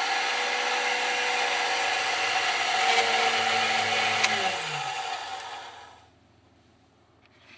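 Innova electric bobbin winder running at speed with a steady whir, winding thread onto a bobbin. A click about four seconds in, then the motor slows down and stops about six seconds in.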